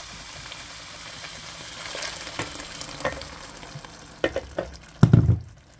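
Beef cubes sizzling in a hot pan, with a few light clicks, as blended green salsa is poured over them; the sizzle thins out near the end. About five seconds in there is one loud low thud.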